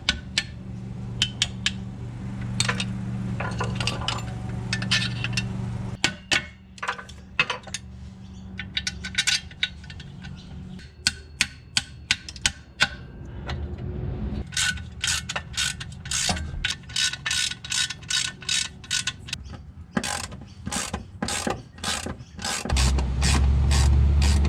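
Socket ratchet clicking as bolts are tightened, in runs of sharp clicks that settle into a steady pace of about two to three a second in the second half.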